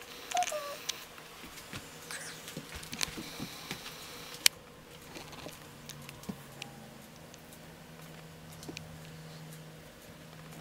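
Light rustling and scattered small taps as a three-legged cat moves about right against the microphone, with one sharp click about four and a half seconds in. A brief high chirp-like call sounds right at the start, and a faint steady low hum comes in during the second half.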